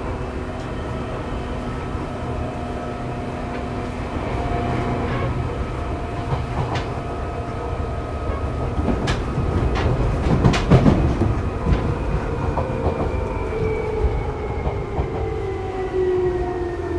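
Seibu 2000 series electric train running: a steady rumble of wheels on rail, with a quick run of rail-joint clicks around the middle. Toward the end the traction motor tone falls steadily in pitch as the train slows to a station stop.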